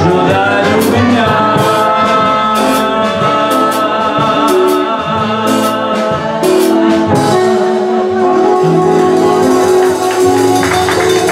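Live band music: a man singing into a microphone over a band with saxophone and percussion.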